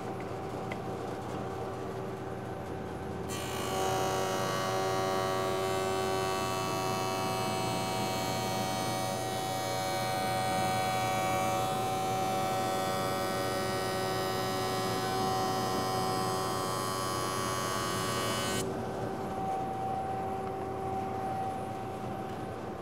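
Benchtop jointer motor and cutterhead running with a steady hum. About three seconds in, a cupped board is pushed across the cutterhead for a light face-jointing pass, adding a loud, higher cutting noise with a whine that lasts about fifteen seconds. Near the end the cut ends and the machine goes back to its idle hum.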